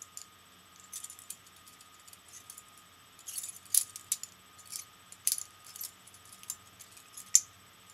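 Butterfly knife (balisong) handles clicking and clacking against the blade as it is flipped through a fast ladder trick, with a run of sharp metallic clicks at uneven spacing and a few louder clacks.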